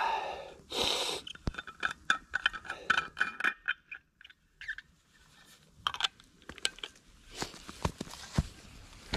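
Handling a metal thermos flask and its cup: a short rush of noise about a second in, then a string of small clicks, taps and scrapes as the cup and screw cap are fitted back on, with a few more clicks near the end.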